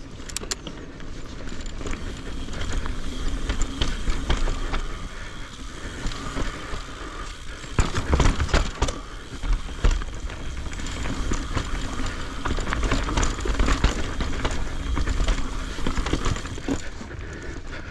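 Mountain bike riding down a rough dirt trail: tyres rolling over dirt and rocks, the chain and bike rattling, with wind rumble on the camera's microphone. Heavy thumps of impacts come about eight and ten seconds in.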